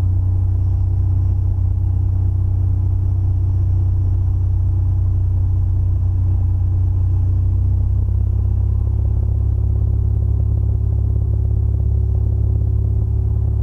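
Cessna 182RG's six-cylinder Lycoming O-540 engine and propeller droning steadily as heard inside the cabin in flight. Its tone shifts slightly about eight seconds in.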